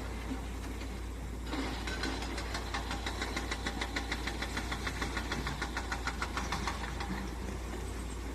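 Excavator engine running steadily, with a rapid, even clacking of about five knocks a second from about a second and a half in until near the end.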